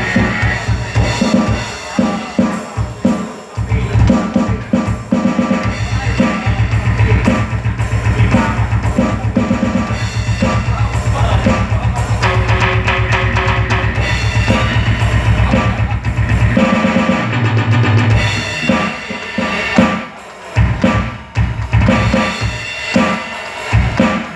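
DB Percussion acoustic drum kit played hard: bass drum, snare, toms and cymbals, with a long, fast, unbroken run of strokes from about six to sixteen seconds in. Backing music with a steady bass line plays underneath.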